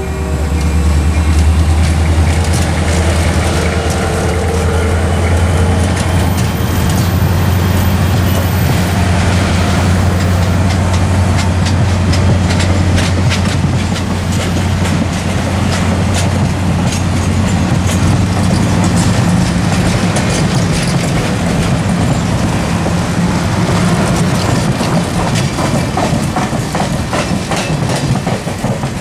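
Passenger train rolling past close by: a steady low rumble of the coaches, with the wheels clicking over the rail joints.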